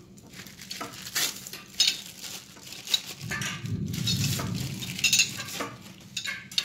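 Plastic wrapping crinkling and rustling as it is handled and pulled off the metal bar of a bicycle baby seat, with sharp clicks and light metal clinks. The rustling is thickest about halfway through.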